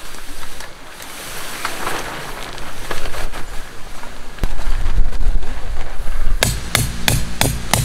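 Wind buffeting the microphone while a tarp rustles, then near the end a steady run of sharp knocks, about four a second: a hammer driving in tent pegs while the tarp is pitched.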